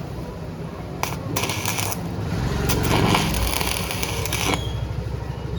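Metallic clicks and rattling from the steel gate and its lock hardware being handled and adjusted, with two sharp clicks about a second in. A low hum sets in about halfway through.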